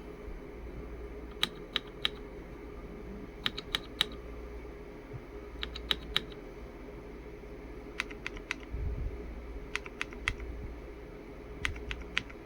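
Lemokey X3 mechanical keyboard being typed on in short bursts: clusters of three or four sharp key clacks about every two seconds, with pauses between, over a steady low hum.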